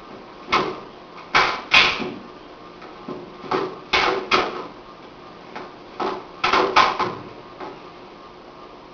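Sharp slaps and thuds of strikes and blocks landing in a Jeet Kune Do partner drill, about a dozen in all, mostly in quick pairs and threes.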